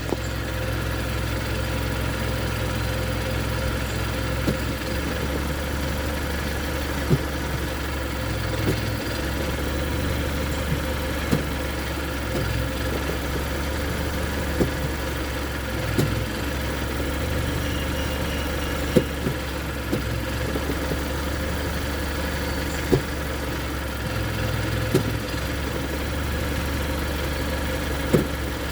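Car engine idling while the automatic transmission is shifted between drive, neutral and reverse, with a sharp clunk at many of the shifts, about a dozen in all: the sign of a damaged transmission mount.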